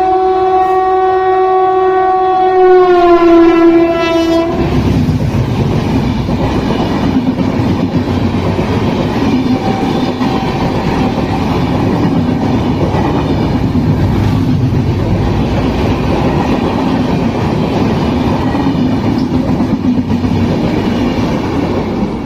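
Indian Railways express train's horn sounding one long, loud blast that dips in pitch near its end and stops about four and a half seconds in, followed by the rumble of the train passing.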